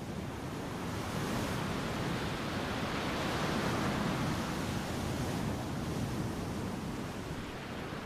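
Ocean surf breaking and washing up a sandy beach: a steady rushing wash that builds to its loudest about halfway through and eases off near the end.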